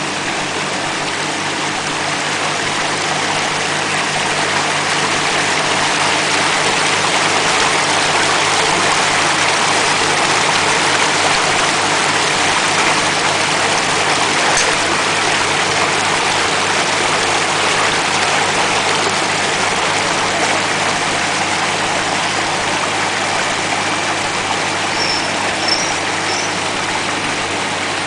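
YQX-650A vegetable washing machine running: a steady rush of churning water over the hum of its motor.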